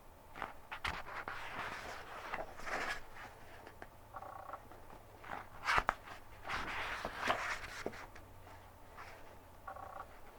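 Paper book pages being turned by hand: papery swishes and rustles in two bunches, with a sharp flick of a page about six seconds in.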